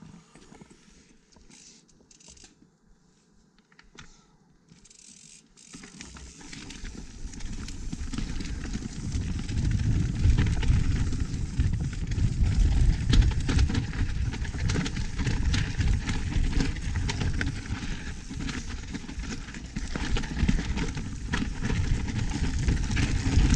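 Pivot Firebird 29 mountain bike on a dirt trail: a few scattered clicks while it barely moves, then from about six seconds in it gets much louder, a steady rumble of tyres over rough ground with constant rattling and clicking from the bike.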